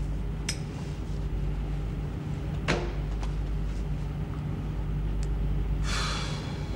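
Steady low drone of a ship's machinery below decks, with a few small clicks and a short hiss about six seconds in.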